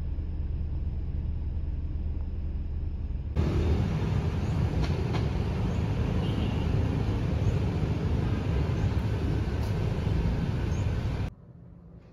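Car engine and road noise heard from inside a car as a steady low hum. About three seconds in it gives way to louder traffic and engine noise, which stops abruptly near the end.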